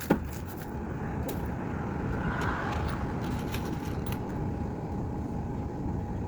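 Steady low outdoor rumble, like road traffic, swelling slightly a couple of seconds in, with a few faint taps.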